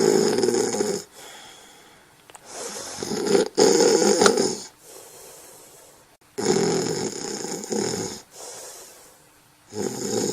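Snoring in a steady rhythm: a loud snore lasting about two seconds, roughly every three and a half seconds, with quieter breathing between.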